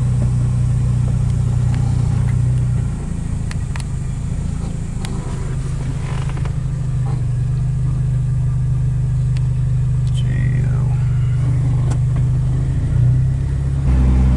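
Car engine and road noise heard from inside the moving vehicle's cabin, a steady low drone. It eases off about three seconds in, holds steady again, and shifts up in pitch near the end as the car picks up speed.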